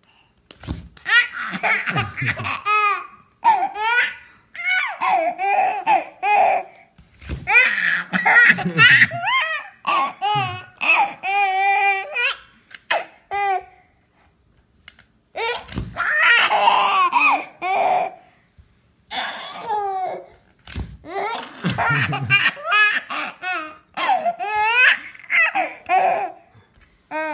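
A baby laughing in repeated bouts of giggles and belly laughs, broken by a few short pauses.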